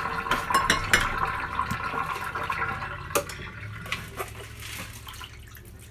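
Water sloshing and dripping in a glass fish bowl being rinsed over a stainless steel kitchen sink, with a few sharp clicks; it grows quieter toward the end.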